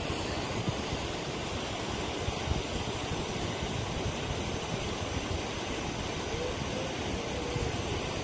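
Steady rush of muddy floodwater flowing fast over a rocky riverbed, released through opened dam gates.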